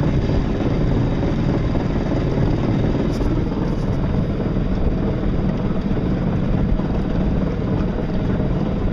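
Steady rushing noise of a small electric boat under way across choppy open water: wind and water against the hull.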